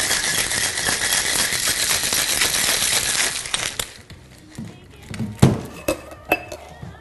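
Ice rattling hard inside a Boston shaker, a steel tin capped over a mixing glass, as a cocktail is shaken; the shaking stops about three and a half seconds in. Then come a few knocks and clinks of metal and glass as the shaker is handled, the sharpest about five and a half seconds in.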